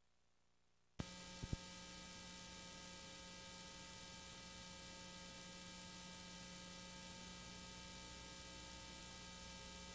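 A click and two quick pops about a second in, then a steady buzzing electrical hum with hiss: the playback noise of a videotape running past the end of its recorded programme.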